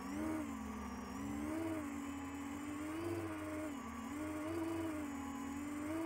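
The quadcopter's four iFlight XING 2814 1100KV motors spinning 10x5x3 HQProp propellers, whining as heard from the onboard microphone. Its pitch swells up and falls back about every second and a half as the throttle is worked in acro flight.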